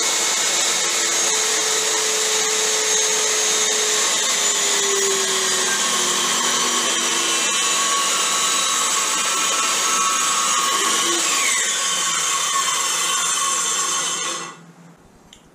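A 7 1/4-inch handheld circular saw runs steadily with its motor whining as it is pushed along a straight edge, ripping a long, very shallow-angle scarf cut in a wooden strip. It is switched off about a second before the end and winds down.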